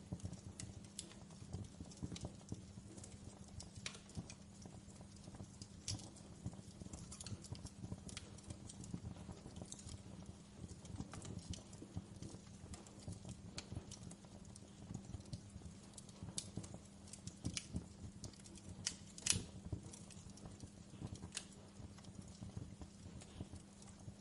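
Wood fire crackling in a fireplace: irregular sharp pops and snaps over a low steady hum, with the loudest pop about nineteen seconds in.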